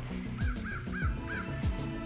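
Background music with a steady beat, about two deep beats a second, and a run of four short high notes in the middle.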